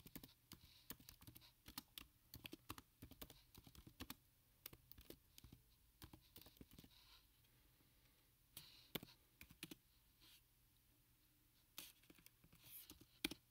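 Typing on a computer keyboard: a quick run of light key clicks for about seven seconds, then a few short flurries of keystrokes with pauses between.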